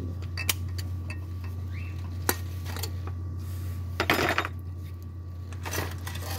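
Metal tools and parts clinking against each other, with scattered sharp clinks and a louder clatter about four seconds in, over a steady low hum.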